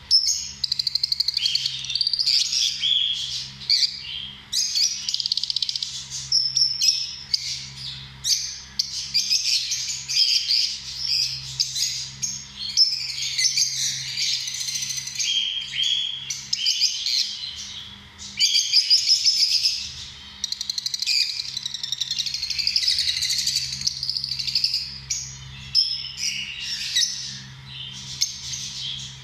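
A group of lovebirds chirping, many high-pitched calls overlapping almost without a break, with a brief lull about two-thirds of the way through.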